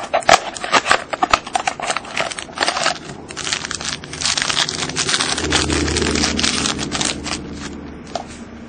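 Card pack wrapper being cut open and handled: dense crinkling and crackling with sharp clicks, settling into a softer rustle after about five seconds.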